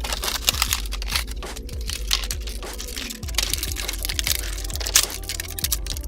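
Toy packaging being opened: plastic and cardboard crinkling and tearing in many quick crackles, with background music under it.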